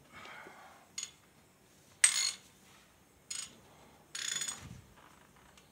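Hand socket ratchet clicking in several short bursts, the loudest about two seconds in, as it is worked on the swing cylinder fittings of a Case 580D backhoe.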